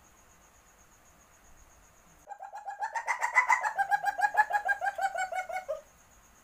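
Civet in heat giving its mating call: a rapid series of short pitched notes, about eight a second, for about three and a half seconds. The notes rise slightly in pitch, then fall toward the end before the call stops abruptly.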